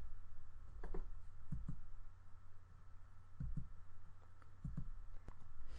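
Quiet room tone with a steady low hum and a few soft, scattered clicks.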